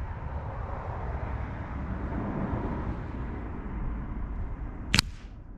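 A single sharp crack of a .177 Webley VMX Quantum air rifle shot about five seconds in, over a low rushing background that swells and fades.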